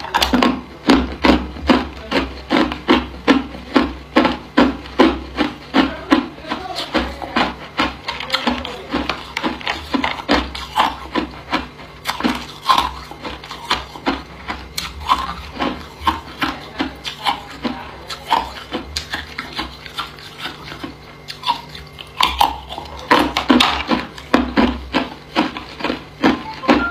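Hard ice cubes being bitten and crunched between the teeth, close up: a quick, steady run of sharp crunches, about two to three a second.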